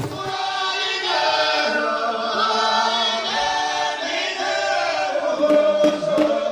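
A choir singing a traditional Rwandan song unaccompanied, in long held notes, with no drums.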